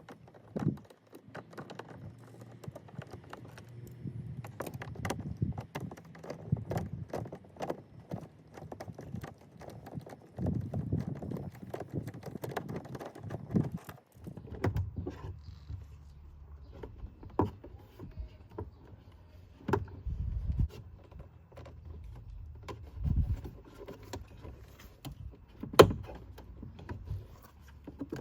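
Irregular knocks and clicks from inside an Audi Q7's rear door, with one much louder knock near the end, over a low rumble.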